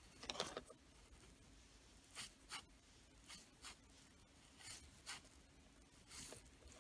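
Faint scratching and rustling of fingers handling thin red and black insulated wires, in a few short bursts, the loudest about half a second in.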